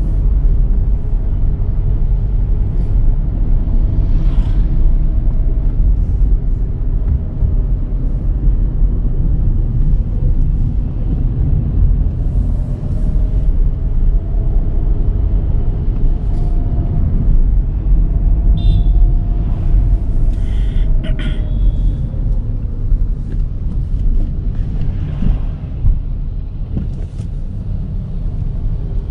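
Volkswagen Virtus GT's 1.5-litre turbocharged four-cylinder petrol engine driving the car, its revs slowly rising and falling over a heavy low rumble. A few brief high-pitched sounds come about two-thirds of the way through.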